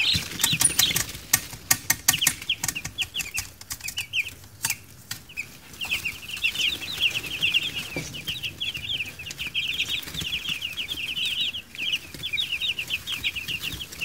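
A brood of week-old meat chicks peeping constantly in rapid short chirps. Over the first few seconds there is a run of sharp clicks and rustling.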